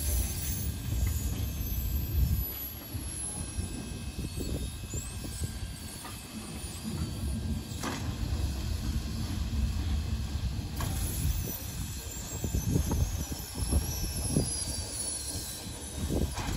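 Turntable slowly turning with the 0-6-0 steam locomotive Morehead & North Fork No. 12 on it: faint high squeals that glide down in pitch, a few sharp clanks and a steady steam hiss over a low rumble.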